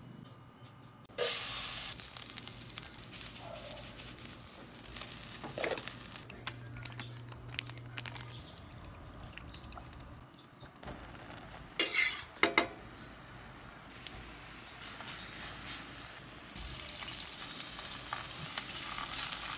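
Marinated meat sizzling in a hot stainless steel frying pan, starting with a loud burst about a second in. A metal spatula knocks and scrapes against the pan a few times near the middle, and the sizzling grows louder near the end.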